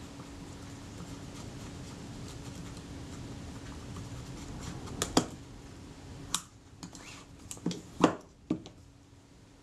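Faint scratchy rubbing of leather dye being worked into a camera's leather covering, then, about five seconds in, a run of about seven sharp clicks and knocks, the loudest near the end.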